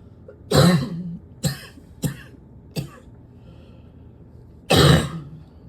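A person's harsh, barking cough coming in a fit: one loud cough about half a second in, three shorter coughs after it, and another loud cough near the end.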